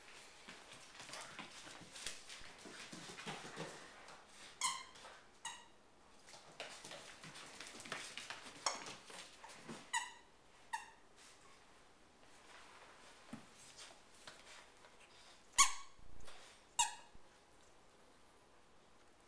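A puppy chewing a stuffed toy rabbit, squeezing out a handful of short, high squeaks from the toy, the loudest about two-thirds of the way through. Soft rustling and chewing noises fill the gaps between the squeaks.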